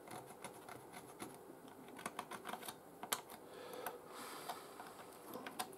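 Faint, irregular light clicks and taps of a plastic radio case being handled on a workbench, with one sharper tap about three seconds in.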